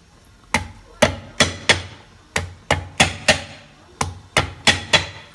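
Cleaver striking garlic cloves on a wooden chopping board to crush them: about a dozen sharp knocks, two or three a second, starting about half a second in.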